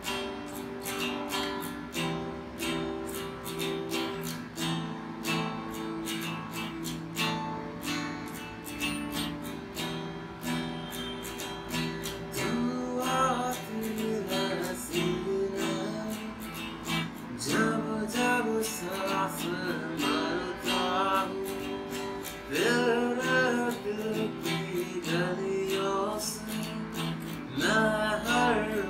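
Acoustic guitar strummed in steady chords, with a man's voice singing a melody over it from about a third of the way in.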